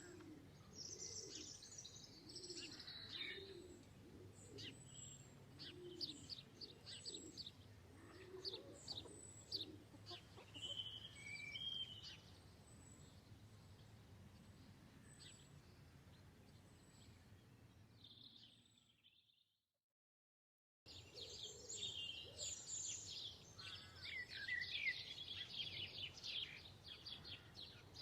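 Small birds chirping and twittering, with a low call repeated about once a second through the first third. The sound fades out around two-thirds of the way in, and after a short silence denser chirping starts up.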